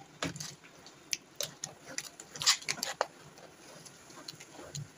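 Spatula scraping and clicking against a kadai while stirring a wet mash of potato, milk, sugar and mawa. The scrapes and clicks are irregular, with a dense cluster near the middle.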